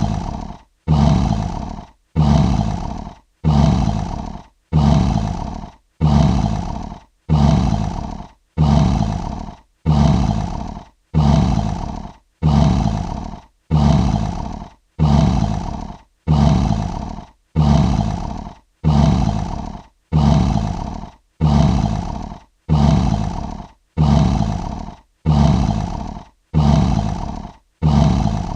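A short lion roar repeated over and over at even spacing, about every 1.3 seconds. Each roar starts loud and fades away, with a brief silence before the next, the same clip looped.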